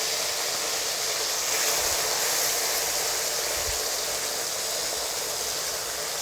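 Small fish sizzling steadily as they fry in hot oil in a kadai.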